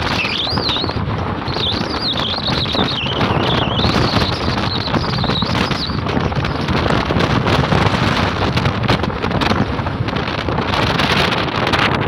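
Wind noise on the microphone and road noise from a moving car, steady throughout. Over it, during the first half, a bird's high, wavering chirping song.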